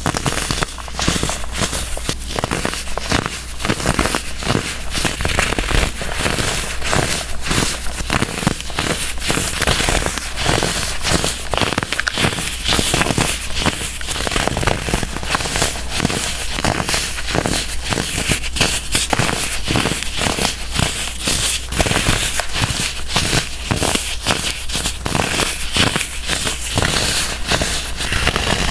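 Compressed baking soda blocks being crushed: a dense, continuous run of crisp crunches and crackles, several a second, over a faint steady low hum.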